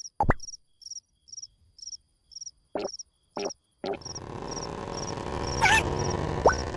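Cartoon-soundtrack cricket chirping, short high chirps about twice a second, with a quick rising glide effect near the start and a few brief knocks. From about four seconds in, a loud, steady noisy rumble swells up beneath the chirping.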